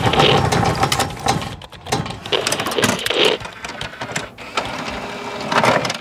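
Sound effects for an animated logo intro: a rapid mechanical clicking and clatter with two louder swells, fading toward the end and stopping abruptly.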